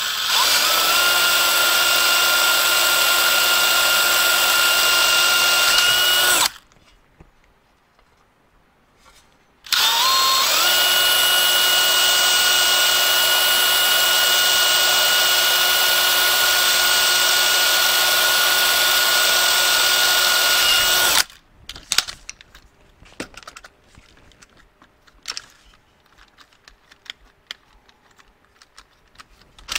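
DeWalt cordless drill drilling out the rivets on a Ford Torino shifter plate: it runs with a steady whine for about six seconds, stops for about three, then spins up and runs again for about eleven seconds. A few light clicks and taps follow near the end.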